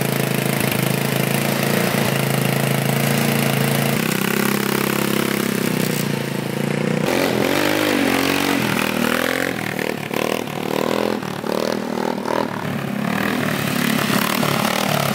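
A 150cc GY6 single-cylinder four-stroke scooter engine idling steadily just after a cold start. About seven seconds in, it switches to revving up and down repeatedly as the scooter is ridden in wheelies.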